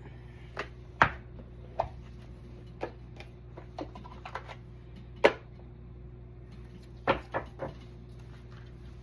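Scattered knocks and taps of a tarot deck and other objects being handled and set down on a table as the deck is readied. There are two louder knocks, about a second in and about five seconds in, and a quick run of three near the end, over a low steady hum.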